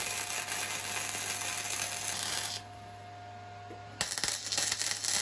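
MIG welder arc crackling and sizzling as steel pipe is welded. The arc stops about two and a half seconds in and strikes up again about four seconds in.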